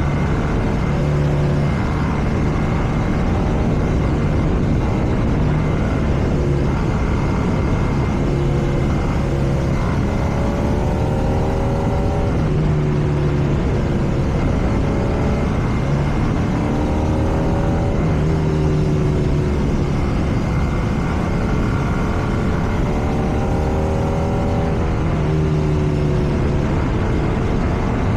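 BMW R nineT's air/oil-cooled boxer twin engine under way, its note climbing several times as the bike accelerates and dropping back in between as it shifts or rolls off, over a steady rush of wind and road noise.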